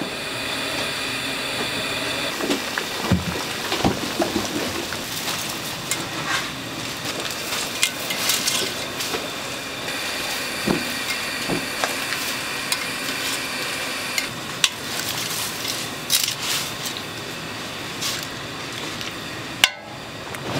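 Food sizzling in a hot pan as it is stir-fried, with a few sharp knocks of a utensil against the pan.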